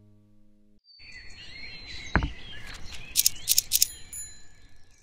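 Acoustic guitar music stops in the first second. Then a logo sound effect plays: birds chirping, a single pop about two seconds in, and three quick bright dings a second later, fading out near the end.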